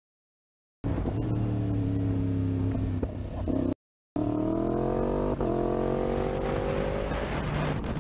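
Motorcycle engine pulling away and accelerating, its pitch climbing steadily. It starts about a second in and drops out briefly a little before halfway. Near the end it gives way to a rush of wind on the helmet microphone.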